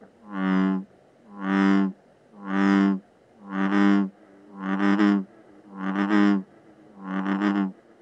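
American bullfrog calling: a series of seven low, drawn-out croaks, each under a second long and about a second apart.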